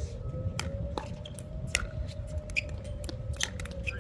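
Wind buffeting the microphone, with scattered sharp pops of pickleball paddles hitting balls and a louder pop right at the end as a shot is struck. A steady droning tone drifts slowly up and down in pitch underneath.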